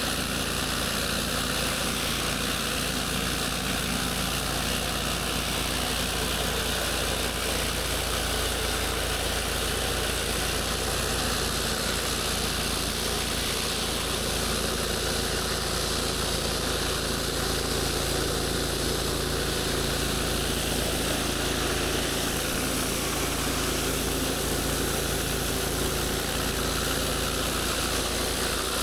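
Pressure washer running steadily: an even engine hum under a constant hiss of high-pressure water spray.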